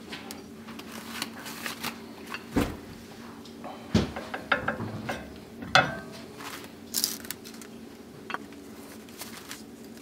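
Light clicks and knocks of a CarboTech XP10 track brake pad being handled and slid into the front brake caliper of a BMW F80 M3, a few sharper knocks spaced out over several seconds, over a faint steady hum.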